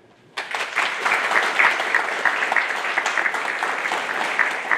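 Audience applauding: many hands clapping, starting abruptly about half a second in.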